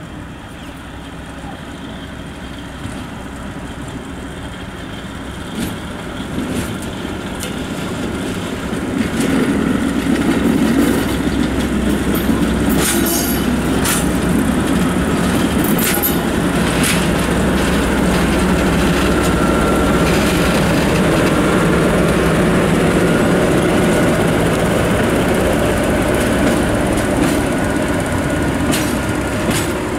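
SM42 diesel-electric shunting locomotive running under way. Its diesel engine grows louder over the first third and then runs steadily close by, with a few sharp clicks about halfway through.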